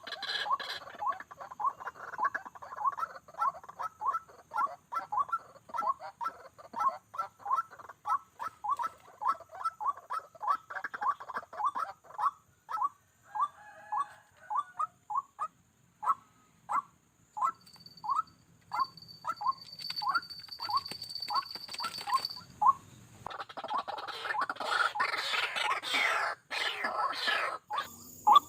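White-breasted waterhen calling: a long series of short, monotonous notes repeated about three times a second, slowing to under two a second about halfway through. Near the end a louder, harsher stretch of calling comes in, and a thin, steady high insect-like whine is heard briefly in the middle.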